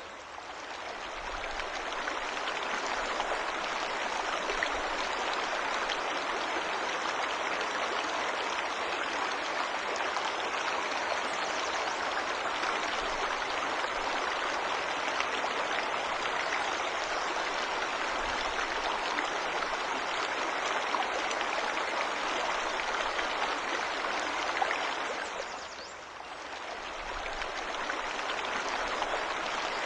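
Waterfall water rushing steadily. The sound dips and fades back up right at the start and again about 26 seconds in.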